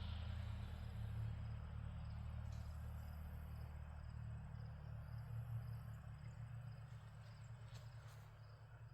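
A steady low hum with an even faint hiss over it, slowly growing quieter.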